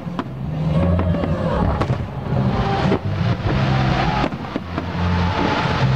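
Fireworks display: many overlapping bangs from bursting aerial shells and launches over a continuous low rumble.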